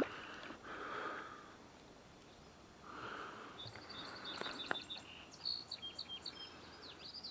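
A small songbird chirping in quick runs of short high notes from about halfway in, some sweeping downward near the end. A single sharp click comes just before the birdsong gets loudest, over soft rustling.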